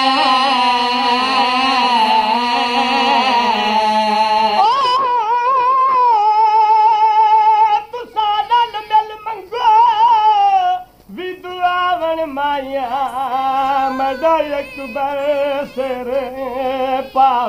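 A solo voice singing a Saraiki dohra, a Karbala elegy, unaccompanied. It holds one long wavering note for about the first five seconds, then goes on in shorter drawn-out phrases with a trembling pitch.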